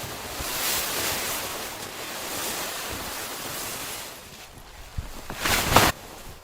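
Wind gusting, a rushing whoosh that swells for a few seconds and dies down, then a short, loud rustle near the end.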